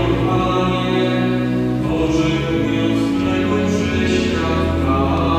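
Church hymn: voices singing over sustained organ chords, with the notes changing every second or two.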